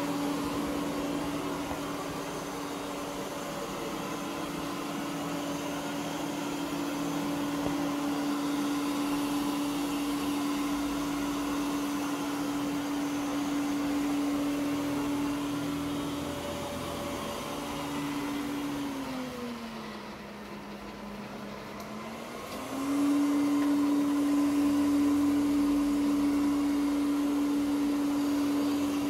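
Ecovacs Deebot OZMO T8+ robot vacuum running on carpet: a steady whine from its suction motor over brush and wheel noise. About two-thirds of the way through, the whine glides down and the sound quietens for a few seconds, then it comes back louder.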